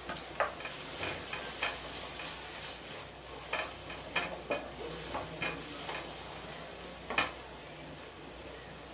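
A wooden spatula stirring and scraping shredded cabbage, carrots and beans in a stainless steel pan, with irregular scrapes and taps over a light sizzle. One louder knock comes about seven seconds in.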